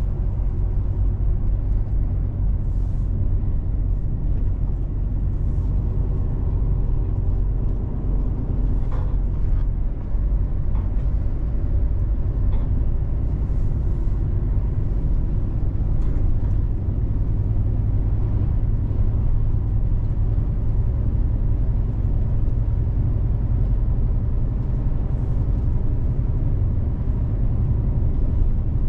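Heavy truck's diesel engine and tyres heard from inside the cab while cruising on the highway: a steady low drone with road noise.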